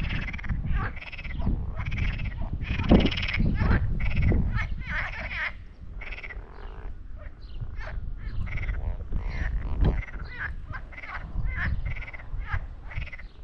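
A chorus of frogs croaking, many short calls overlapping in quick succession, over a low rumble.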